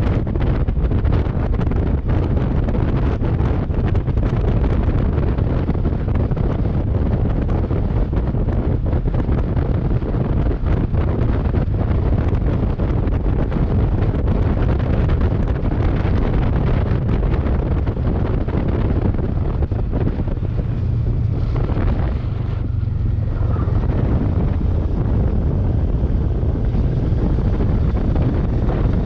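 Wind buffeting the microphone on a moving motorcycle, with the Kawasaki Versys 650's parallel-twin engine running underneath; the buffeting eases a little for a moment about two-thirds through.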